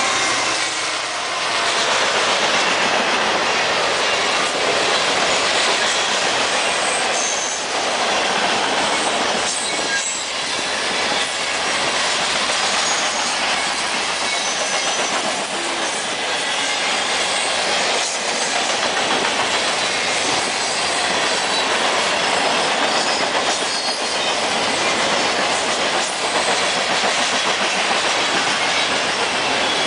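Coal train of hopper cars rolling past close by: a steady loud rumble with wheels clattering over the rails. Short high wheel squeals come now and then.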